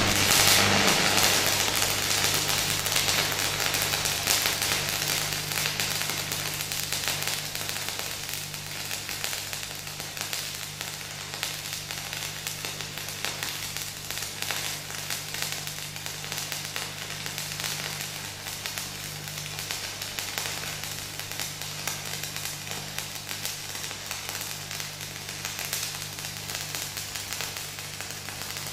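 Shielded metal arc (stick) welding of a butt joint in steel plate: the electrode arc gives a fast, continuous crackling over a steady low hum. The crackle is louder for the first few seconds, then settles to an even level.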